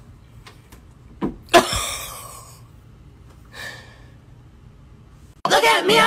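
A thump about a second in, followed at once by a sharp, breathy gasp that fades over about a second, and a fainter breathy sound later. Music with rapping comes in loudly near the end.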